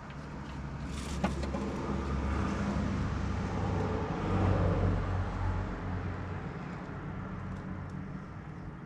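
A motor vehicle's engine running, its sound growing louder over a few seconds and then fading as if it passes by. A single sharp click about a second in.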